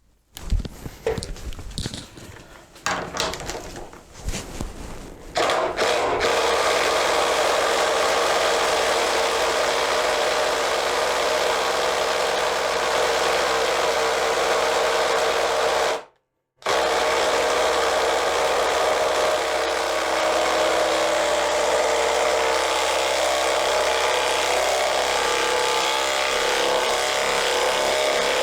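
Ryobi ONE+ HP 18-volt brushless impact driver (PBLID02) hammering continuously under heavy load, driving a lag bolt through a socket adapter. A few seconds of clattering knocks come first, then the steady impacting starts about five seconds in, with a brief gap about sixteen seconds in.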